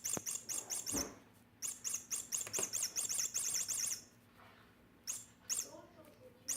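Rapid high-pitched chirping or squeaking from a cat's play toy, about seven chirps a second in two runs over the first four seconds, then a few single chirps near the end.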